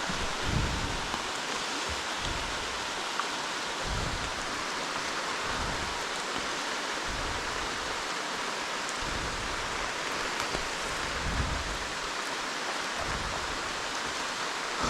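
Steady rain pouring down, an even hiss, with a few brief low rumbles on the microphone.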